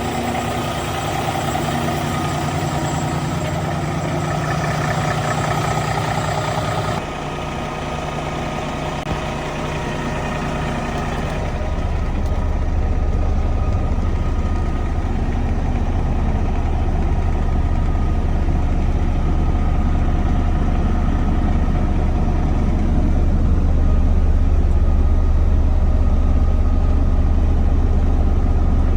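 Cummins ISX12 inline-six diesel engine of a Kenworth T880 mixer truck idling steadily. About 7 s in the sound shifts, and from about 12 s in a deeper, slightly louder low hum takes over.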